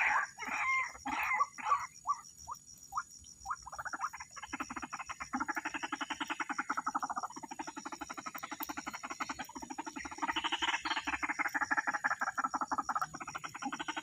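White-breasted waterhens calling: a string of notes that slows and stops in the first few seconds, then from about four seconds in long runs of fast, rapidly repeated notes with short breaks between them.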